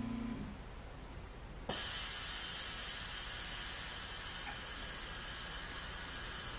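HIAC 8011+ liquid particle counter depressurizing after its sample run. A steady hum stops, then a sudden loud hiss of venting air starts, with a high whistle that slowly falls in pitch as the pressure bleeds off.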